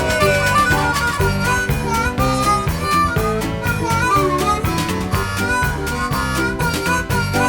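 Background music: an upbeat harmonica tune over a plucked guitar with a steady beat.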